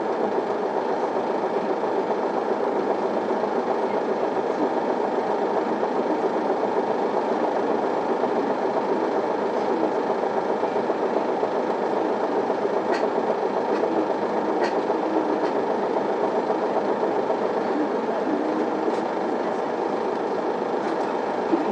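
Cabin noise of an Isuzu Elga city bus: a steady diesel engine drone heard from inside the passenger cabin. Two short sharp ticks come a little past the middle.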